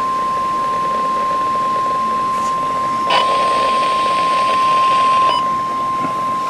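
NOAA Weather Radio warning alarm tone: a single steady high tone of about 1050 Hz, held unbroken over background hiss. It marks the start of the Severe Thunderstorm Warning. About three seconds in, a rush of louder noise lasting some two seconds rides under the tone.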